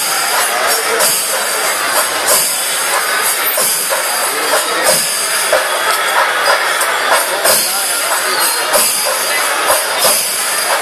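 Kerala temple percussion ensemble playing loud and continuously: drums beating under constantly clashing hand cymbals.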